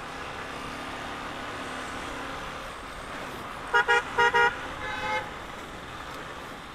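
A vehicle horn toots three times in quick succession about four seconds in, followed by a fainter horn note. Underneath is the steady noise of a motorcycle riding through city traffic.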